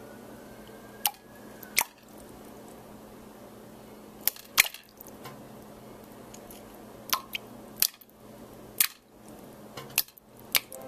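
Small pebbles dropped one at a time, each landing with a sharp click, about ten irregularly spaced over the stretch, the loudest near the middle, over a low steady hum.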